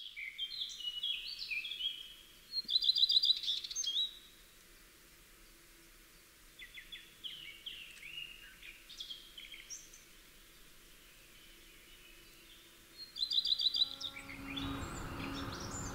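Several songbirds chirping and singing, with a fast, loud repeated trill twice. Near the end, a Taylor acoustic guitar starts being strummed and plucked under the birdsong.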